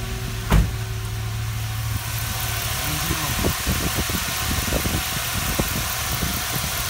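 Twin Spal electric radiator fans running, switched on with the air conditioning, over the Chevy Tahoe's V8 idling. The steady rushing grows louder about two seconds in, with a single thump about half a second in and light knocks later on.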